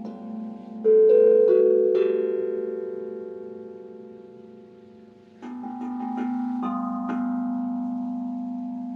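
Sound-bath instruments ringing: a steady low tone sustained underneath while a quick group of three bright ringing notes sounds about a second in and slowly fades. A second group of notes comes in about halfway and rings on.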